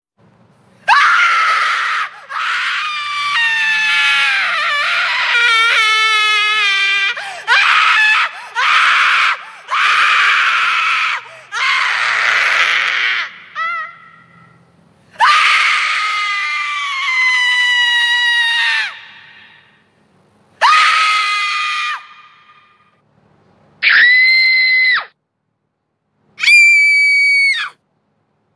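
Women screaming: a string of about ten separate, very high-pitched screams with short gaps between them, several of them sliding down in pitch.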